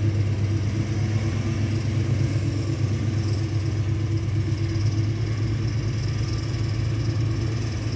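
Heavy diesel engine running steadily at an even speed, a constant low drone with no rises or falls.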